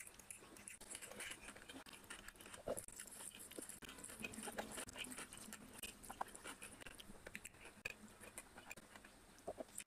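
Close-miked eating by hand: wet chewing and lip smacks with fingers working through biryani rice, many short crackly clicks and squelches.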